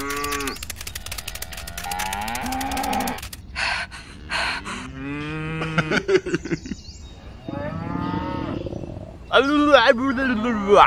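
Comic cartoon-character voice effects: a string of short, silly pitched vocal sounds that slide up and down. A few quick noisy bursts come about four seconds in, and a louder wobbling voice sound comes near the end.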